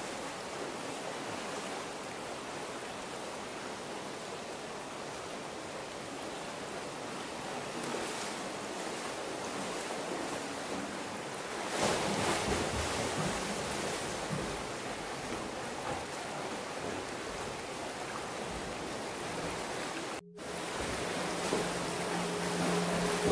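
Steady rush of river water flowing through a rock canyon. About twelve seconds in there is louder splashing as a swimmer dives in and swims. Near the end the sound cuts out for an instant and music with steady held notes comes in.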